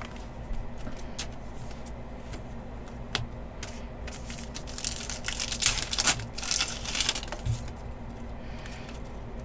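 Trading-card pack wrapper crinkling and tearing open, with light clicks of cards being handled; the crinkling is loudest for a few seconds in the middle.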